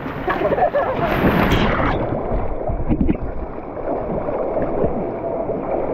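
Whitewater rushing around a raft running river rapids, with wind buffeting the microphone and rafters' voices calling out now and then.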